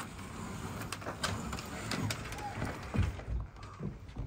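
Scattered clicks and knocks of hands and hardware on a sailboat's deck and rigging, with a few heavier thumps about three seconds in, over a steady low rumble.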